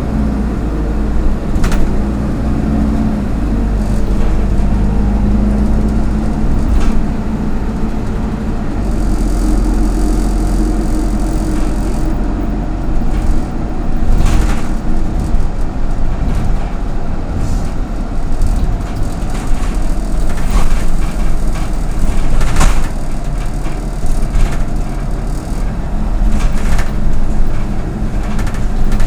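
Autosan Sancity M09LE city bus under way, heard from inside. The engine drones low and shifts in pitch a few times as the bus changes speed, with sharp knocks and rattles from the body now and then.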